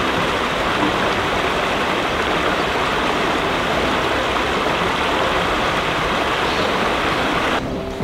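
Shallow creek water running over rocks and a low ford, a steady even noise that cuts off abruptly near the end.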